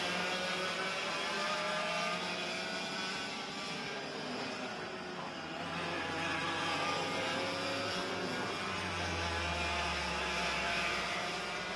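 Several ROK VLR 100cc two-stroke kart engines racing at high revs as a pack goes by, their pitch rising as they accelerate out of a corner.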